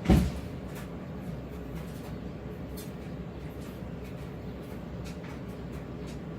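A single sharp thump right at the start, then a steady low hum with a few faint clicks, like an object being handled.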